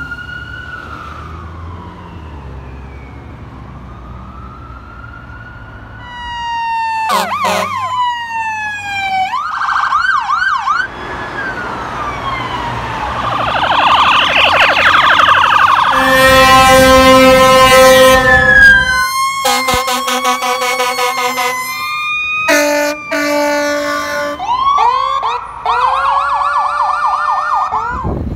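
Emergency vehicle sirens. An ambulance siren wails slowly, then a rapid series of fire apparatus sirens follows, cut together abruptly and switching among fast yelps, warbles and long steady tones.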